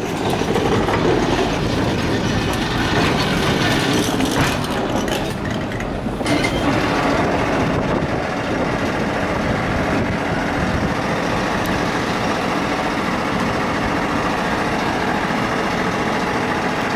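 Ascensor da Glória funicular car running on its rails: a steady mechanical running noise, with a few knocks in the first six seconds.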